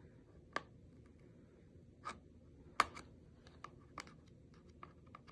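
Clicks, scratches and light crinkles of fingers breaking the seal and working open a small boxed package, with a few sharper snaps about half a second, three seconds and four seconds in.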